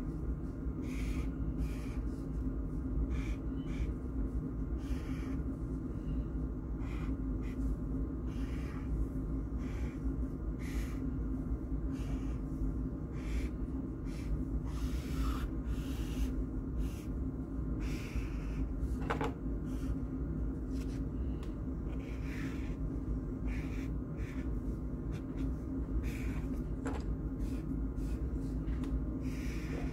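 Felt-tip marker strokes across sketchbook paper: short soft hisses, roughly one a second, irregularly spaced, over a steady low hum.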